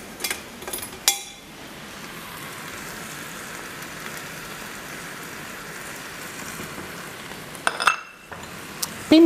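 Hot oil sizzling steadily in a frying pan with atsuete powder and banana ketchup, with a few clicks of a utensil against the pan in the first second and another clink near the end.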